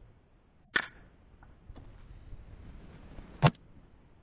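Two sharp clicks against near quiet, a light one about a second in and a louder, heavier one near the end: handling noise from the scoped rifle as the shooter settles in to aim.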